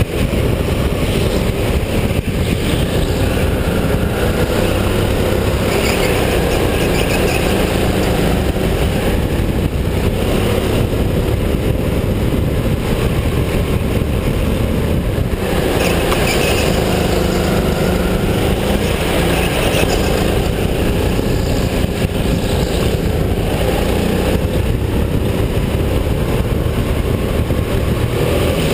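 Racing go-kart heard from on board, running hard around an indoor track, its motor note rising on the straights and dropping into the corners, lap after lap.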